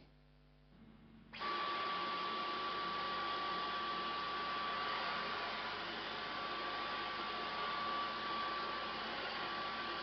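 Dyson V11 Outsize cordless stick vacuum running steadily, its motor giving a steady high whine over a loud rush of air. The sound comes in suddenly about a second and a half in.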